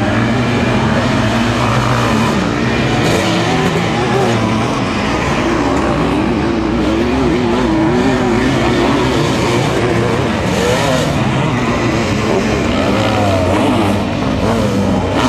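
Sidecar motocross engines running hard, their pitch rising and falling as the outfits are revved through the turns on loose dirt.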